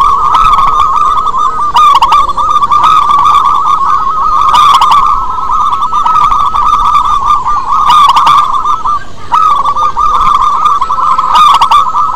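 Zebra doves (perkutut) cooing loudly, their rolling, warbling coos overlapping almost without a break, with louder phrases about every three seconds.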